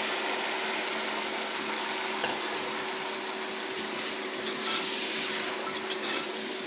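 Chopped tomatoes and onions sizzling in hot oil in an aluminium pot while a steel ladle stirs them, with a few light knocks of the ladle against the pot. The sizzle grows brighter about four to five seconds in, as the tomatoes are stirred through.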